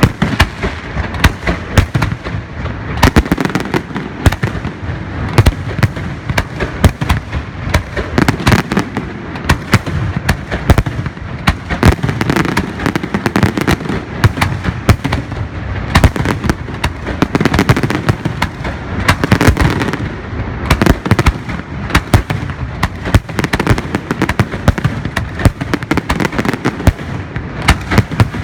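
Aerial fireworks going off in a continuous barrage: many rapid, overlapping bangs a second without a pause.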